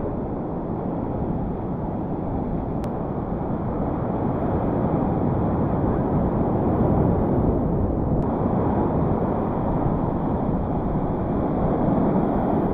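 Ocean surf breaking on a sandy beach, with wind buffeting the microphone: a steady rushing noise.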